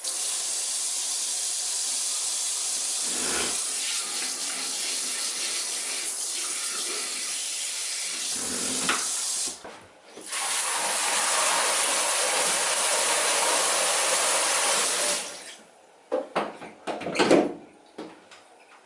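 Water running steadily from a tap into a sink. It stops for about half a second just after the middle, runs again for about five seconds, then cuts off, followed by a few light clicks and knocks of things being handled.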